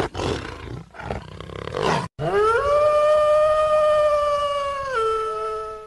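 A rough growling roar, then a long held howling note that slides up in pitch, holds steady for nearly three seconds and drops lower near the end: a dubbed-in roar-and-howl sound effect.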